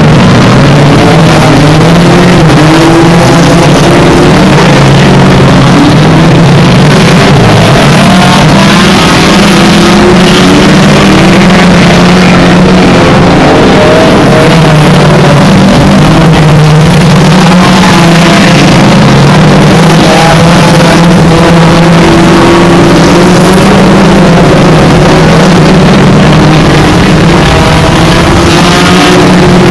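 Engines of a pack of small hatchback hot rods racing on a shale oval, several at once, their pitches rising and falling as drivers lift and accelerate through the bends. Loud throughout.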